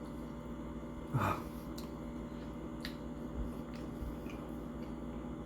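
Close-up mouth sounds of someone chewing soft tacos: small wet clicks and smacks scattered through, with one brief louder mouth sound about a second in. A steady low room hum sits underneath.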